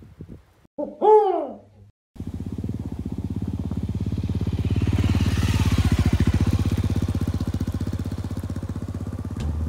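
A brief pitched sound falling in pitch about a second in. Then a single-cylinder Honda CB250F motorcycle engine runs at low speed, growing louder as the bike comes up, passing close and then easing off as it rides away over gravel.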